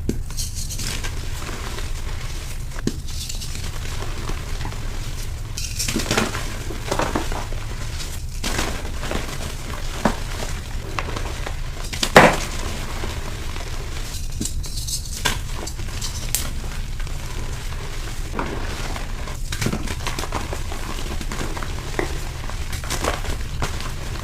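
Reformed gym chalk blocks being crushed and crumbled by hand: irregular crunches and crackles, with the loudest, sharpest crunch about halfway through, over a steady low hum.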